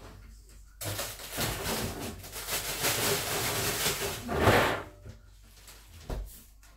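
Rattling and rustling of ice being fetched, probably from a freezer, lasting about four seconds and loudest just before it stops, then a single knock about six seconds in.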